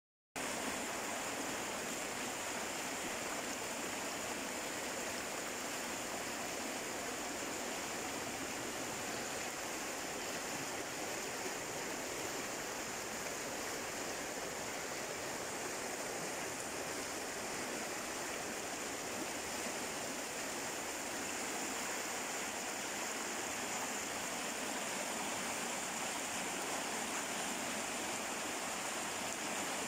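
Fast-flowing river rushing in white water: a steady, unbroken rush of turbulent water.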